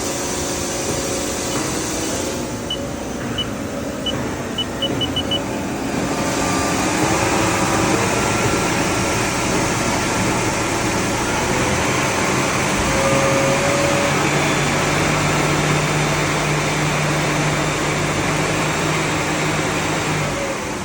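A CNC lathe running under power with a steady mechanical noise. A run of short high beeps comes faster a few seconds in, and the noise grows louder about six seconds in, with a steady low hum from about two-thirds of the way through.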